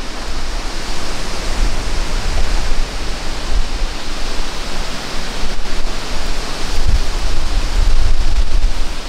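Wind buffeting the microphone: a steady rushing noise with an uneven, gusting low rumble.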